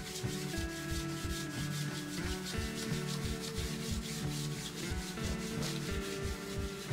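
A cloth rag rubbing oil into a wooden parquet panel in quick, rhythmic back-and-forth strokes, about four or five a second, over background music with a steady beat.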